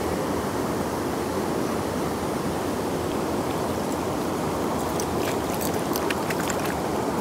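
River current rushing and rippling steadily around the landing net held in the water. A few short, light clicks come about five to six seconds in.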